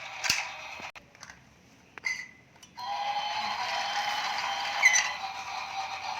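Battery-powered toy train: a few light clicks and knocks, then a steady whirring hum that starts about three seconds in.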